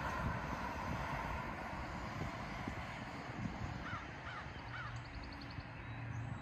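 A crow calling three times in quick succession about four seconds in, over the fading hiss of a car passing on the road.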